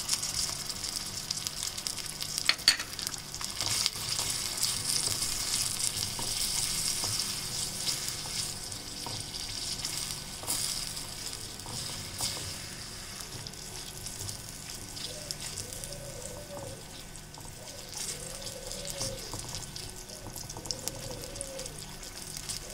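Chopped tomatoes sizzling in hot ghee with onions in a small wok, stirred with a wooden spoon. The sizzle is strongest for the first ten seconds or so, then eases to a lower, steady frying hiss.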